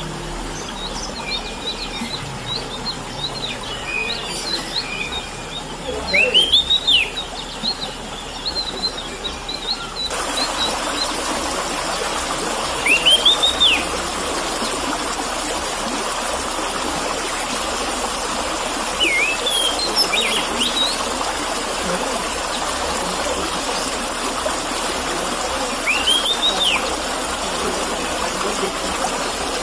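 Orange-headed thrush giving loud arched whistled notes every several seconds over steady trickling water. The water sound gets louder about a third of the way through; before that, faint high chirps from other birds are heard.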